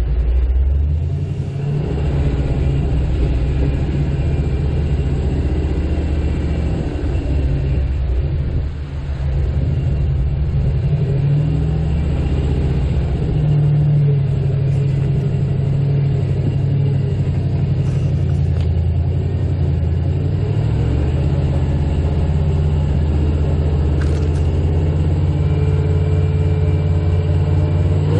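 Off-road 4x4's engine running at low revs while driving, its pitch rising and falling a little with the throttle, with a brief drop in loudness about nine seconds in.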